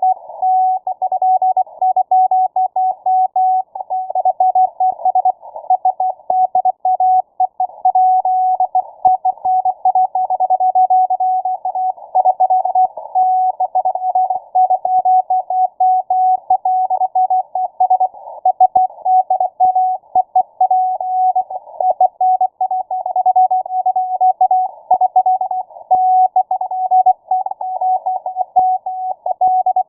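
Morse code (CW) signal received on shortwave through a WebSDR: a single steady beat tone keyed rapidly on and off, heard through a narrow filter that passes band noise and static around it.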